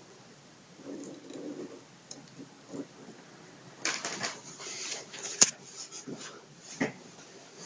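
Handling noise as a handheld camera is moved close over a 3D-printed plastic piece: rustling and small clicks, with one sharp click about five and a half seconds in and a couple of knocks after it. A short low sound comes about a second in.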